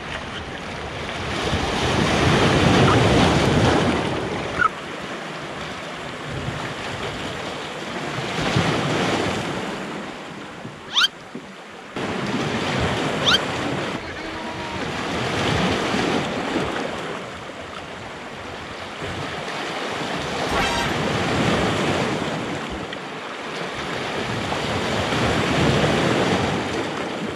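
Sea waves breaking and washing over a boulder shore, the surf swelling and ebbing every few seconds. Two brief, high, rising squeaks near the middle.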